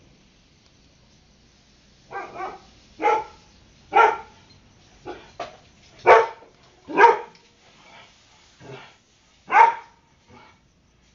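A dog barking: about a dozen short, sharp barks in an uneven series, starting about two seconds in.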